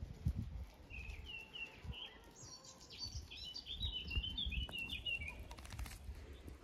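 A small bird singing a quick, twittering song in short warbling phrases for a few seconds, over the patter and low thumps of puppies' paws scampering on gravel.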